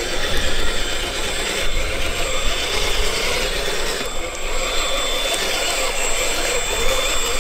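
A 1/10-scale RC crawler truck's electric motor and geared drivetrain whining steadily as it crawls over rough ground, over a low rumble.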